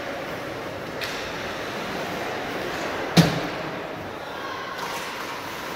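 Basketball game noise in a gymnasium: a steady din of the court and the crowd, with one sharp, loud thud a little over three seconds in that rings briefly in the hall.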